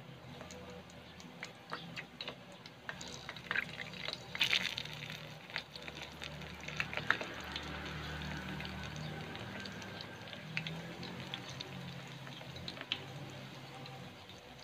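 Coated sweet potato balls frying in hot oil in a pan: a steady sizzle with scattered crackles and pops, loudest in clusters around four to five seconds in and again near seven seconds as more balls go into the oil.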